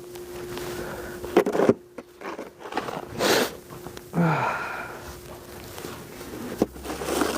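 A person breathing hard and sniffing in the cold, with short sharp sniffs and a falling, voiced sigh about four seconds in.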